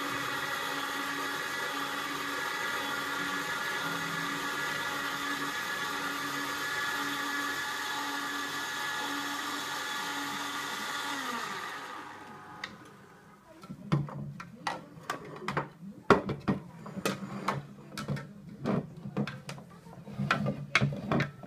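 Slow (masticating) juicer motor running steadily, a hum with a whine and a regular pulse just over once a second, while juicing carrots. About twelve seconds in the motor winds down and stops. Then come irregular knocks and clinks as the plastic jugs and glasses are handled.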